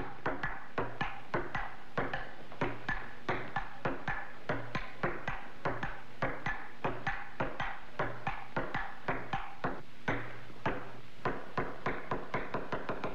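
Ping-pong ball clicking back and forth in a steady table-tennis rally, about three sharp hits a second off the paddles and table, each with a short ring.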